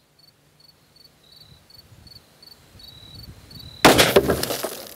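A single 10mm pistol shot from a Glock 40, sudden and loud, about four seconds in, followed by about a second of water spraying and splashing from the burst jugs. Before it, insects chirp faintly in a steady repeating rhythm.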